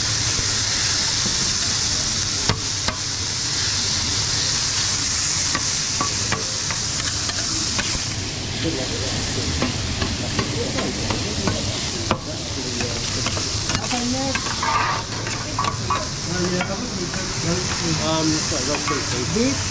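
Shredded vegetables sizzling on a hot steel flat-top griddle while two metal spatulas stir and scrape them, with repeated clicks and scrapes of the blades on the plate. The sizzle is strongest in the first half and dies down in the second.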